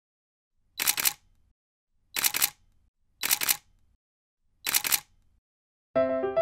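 Camera shutter click sound effect, four times at uneven intervals, each a quick double click. Piano music begins near the end.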